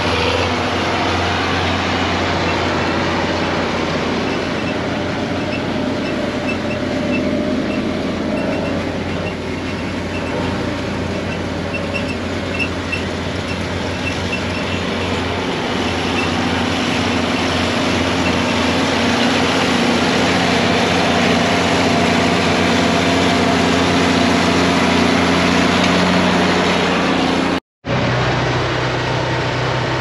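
Steady engine drone from a side-by-side utility vehicle driving close behind a John Deere 4440 tractor pulling a John Deere 568 round baler, the machines' sound blended together. The pitch of the drone shifts partway through. The sound cuts out for an instant near the end and comes back as a steadier hum.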